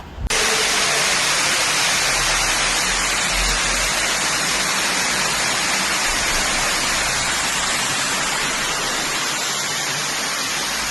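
Loud, steady rushing noise of water, starting abruptly and holding unchanged.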